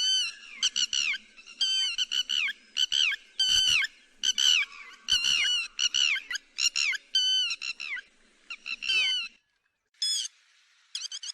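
Lapwing calling: rapid runs of sharp, downward-sliding notes in repeated bursts, with a pause of about a second near the end before the calls start again.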